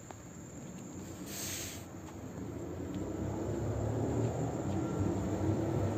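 SKM Pesa Elf (27WE) electric multiple unit approaching: a low rumble that grows steadily louder from about two seconds in. A brief hiss comes about a second and a half in.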